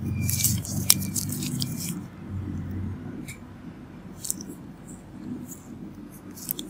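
Gloved fingers and cotton-wrapped tips pressing and rubbing on skin close to the microphone: a low rubbing noise with scattered crackly clicks, including one sharp click about a second in. It is loudest over the first two seconds, then fainter.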